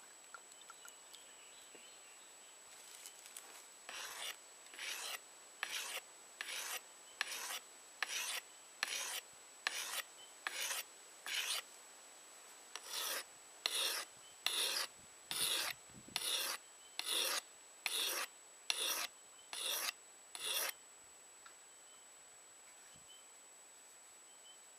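Steel blade stroked back and forth across a wet whetstone in sharpening: about twenty even scraping strokes, a little over one a second, with a short pause about halfway through.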